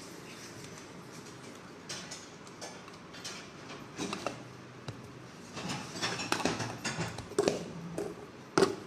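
Scattered light clicks and taps of handling in a kitchen, over a faint steady background hiss; the sharpest knock comes near the end.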